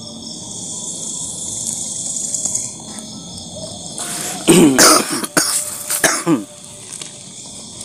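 A man coughing hard several times in a row, starting about four and a half seconds in and lasting about two seconds. Before it, the steady, high chirring of night insects is heard.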